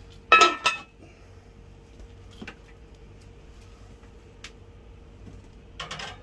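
Enamelled cast-iron Dutch oven lid set onto the pot with two ringing clanks about half a second in. A short scraping rattle near the end as the lidded pot is pushed into the oven.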